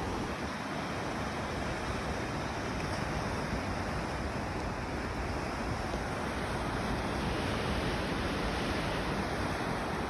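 Truckee River running very high with snowmelt, its whitewater rushing steadily, with some wind noise on the microphone.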